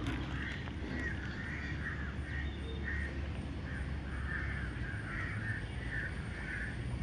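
Crows cawing, a continuous run of harsh calls two or three a second, over a low steady rumble.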